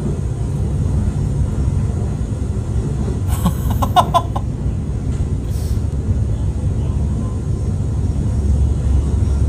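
Line 4 subway train running, a steady low rumble heard from inside the car. About three and a half seconds in there is a brief burst of sharper sound lasting about a second.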